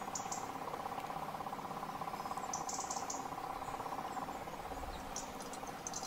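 Portable reverse-osmosis water filter's electric pump running with a steady, rapidly pulsing hum as it draws river water up about four feet, working hard at that lift; the hum softens after about four seconds. A few short high chirps sound over it.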